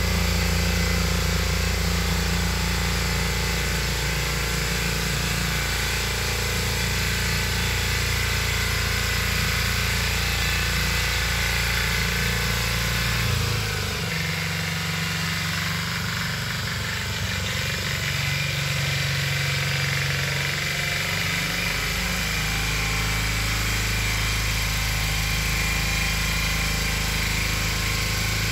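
The 8 hp Lombardini single-cylinder engine of a Valpadana walk-behind tiller runs steadily. Its note changes for several seconds around the middle, then settles back.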